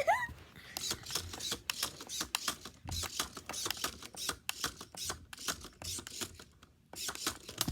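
Rapid, irregular clicking and clattering from the plastic Fantastic Gymnastics toy as it is worked during a turn.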